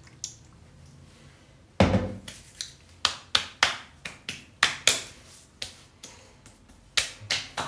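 Hands patting and slapping aftershave onto freshly shaved skin. A single thud about two seconds in, then a quick, irregular run of sharp slaps, two to three a second.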